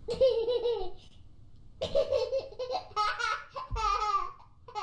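A young child laughing in pitched bursts, with a quick run of short laughs near the end.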